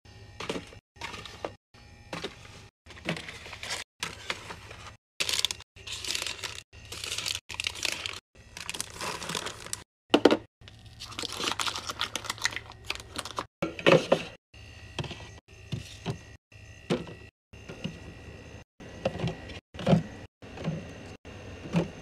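Restocking sounds: plastic yogurt cups, yogurt tubes and bottled drinks set down and shuffled into a fridge and a plastic bin. A quick run of taps, clatters and packaging crinkles, chopped by many short silent gaps, with a few sharper knocks standing out.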